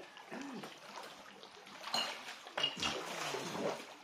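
Water splashing and sloshing around people wading waist-deep, in irregular bursts, with faint voices in the background.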